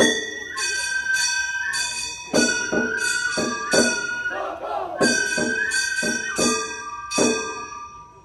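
Gion bayashi festival music: small bronze hand gongs (kane) struck in a steady, bright ringing pattern about twice a second, over a held flute line and drum strokes. It fades near the end.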